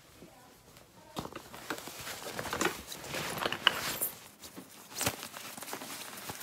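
Rustling and crinkling of a black drawstring bag and clothing as the bag is packed in a hurry, with many quick clicks and taps, starting about a second in.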